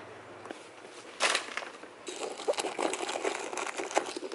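Rustling and small clicks of someone rummaging through a handbag, with a short rustle about a second in and busier handling from about two seconds on.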